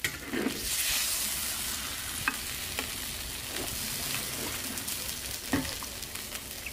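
Metal ladle scraping and clinking against a wok as hot broth and meatballs are dished out, over a steady hiss from the hot wok. A few sharp knocks stand out along the way.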